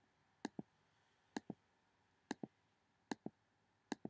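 Sharp clicks in close double pairs, like a tick-tock, repeating steadily about once a second: five pairs, with quiet in between.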